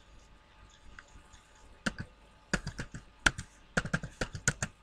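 Typing on a computer keyboard. After a couple of quiet seconds there is a single keystroke, then a quick, irregular run of key clicks from about halfway in.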